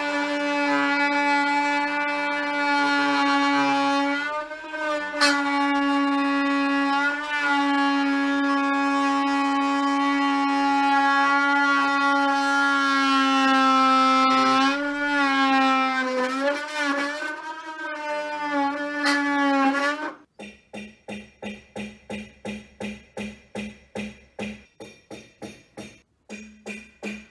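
A power tool's motor whines at a steady pitch, sagging and wavering briefly a few times as it takes load, then cuts off about twenty seconds in. A rhythmic sound of about three strokes a second follows to the end.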